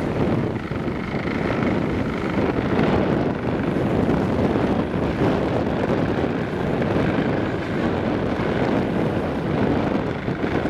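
Wind buffeting the microphone over the rush of water along the hull of a sailboat under sail, a steady rushing noise that swells and eases.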